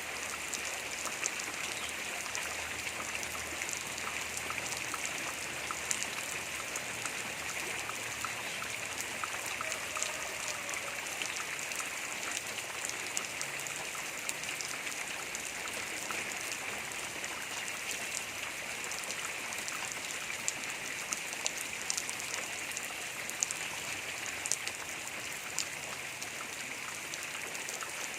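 Steady rain falling, with many sharp, irregular ticks of drops striking nearby surfaces.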